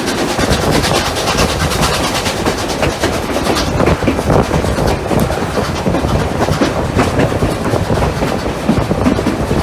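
Steam locomotives Rx207 and 621 double-heading a train up a grade, heard from on board: loud, steady running noise of locomotives and train. A rapid string of sharp ticks in the upper range thins out about four seconds in.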